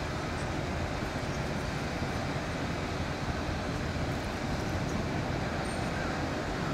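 Boeing 929 Jetfoil passing foilborne at speed, its gas-turbine-driven waterjets making a steady, deep rushing noise with no distinct tones.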